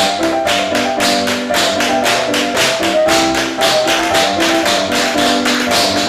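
Tap shoes striking a wooden floor in a dense, even stream of taps: four tap tracks of the same combination layered and staggered a beat apart (sound stacking). Background music with held notes plays underneath.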